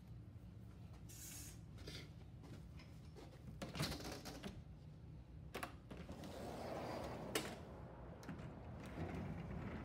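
Quiet rustling with several scattered clicks and knocks, the loudest about four seconds in and again near seven and a half seconds: handling of a tablet, a fabric curtain and a sliding glass patio door.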